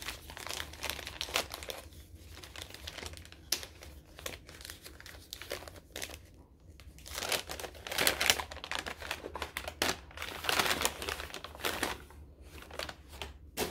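Gift wrapping being crumpled and torn open by hand in irregular crinkling bursts, loudest in the second half.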